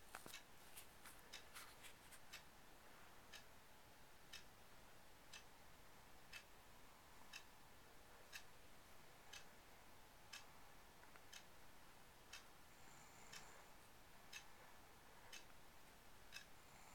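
Faint, steady ticking of a clock, about one tick a second, over near silence, with a quicker run of clicks in the first two seconds.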